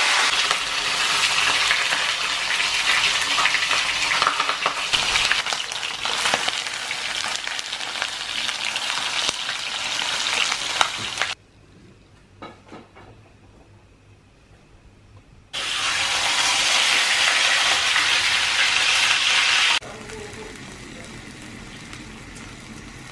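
Food sizzling in hot oil in a wok while a spatula stirs it, with a few sharp clicks of the spatula against the pan. The sizzle drops away for about four seconds partway through, comes back loud, then settles to a quieter simmer near the end as the fish head cooks in its liquid.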